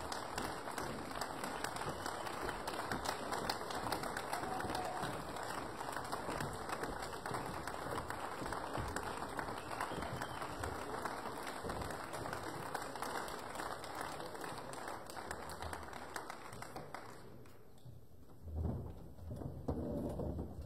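Audience applauding steadily, the clapping dying away about 17 seconds in. A few soft low thumps and shuffles follow near the end.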